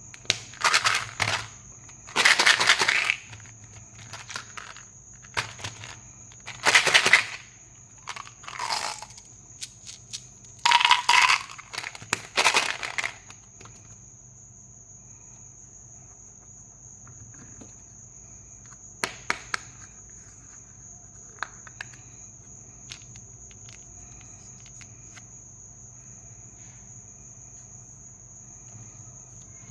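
Candy packaging being crinkled and crushed by hand in several loud bursts over the first half, then only a few short clicks, over a steady high-pitched whine.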